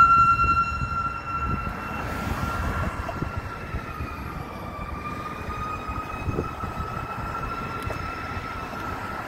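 Fire engine's siren wailing on one steady pitch as the truck moves off. It fades over the first couple of seconds, then holds at a lower level, sagging slightly in pitch midway, over a low traffic rumble.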